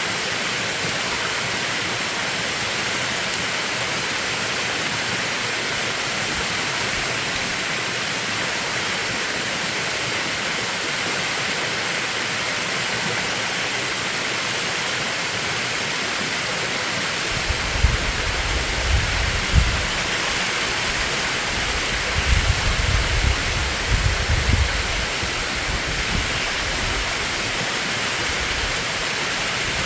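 Mountain valley stream rushing steadily over rocks. Partway through, two spells of low rumbling gusts come in, typical of wind buffeting the microphone.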